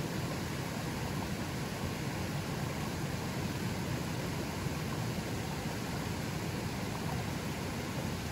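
River water flowing fairly strongly: a steady, even rush, heaviest in the low range.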